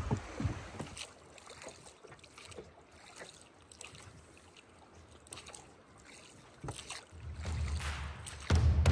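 Faint steady rush of river current. About seven seconds in, music with a heavy low bass comes in and grows louder.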